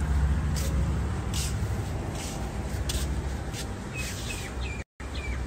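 Small birds chirping over a steady low rumble of wind and handling noise on a phone microphone, with short chirps near the end. The sound drops out for a split second shortly before the end.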